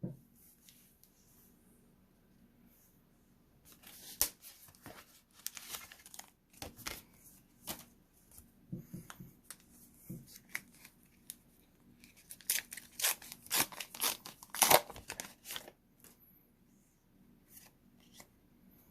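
Pokémon card pack wrapper being torn open and crinkled in the hands: a run of sharp crackles and rips, busiest near the middle and end.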